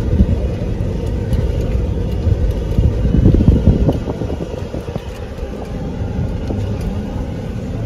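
Ford pickup truck driving, heard from inside the cab: a steady low engine and road rumble, louder for a moment about three seconds in.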